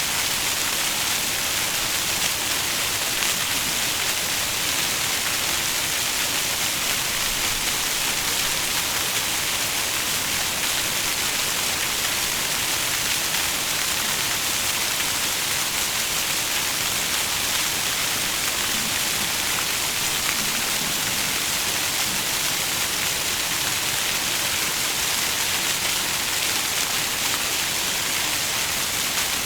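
Water fountain splashing: a steady, even rush of falling water, bright and hissy, with no change in level.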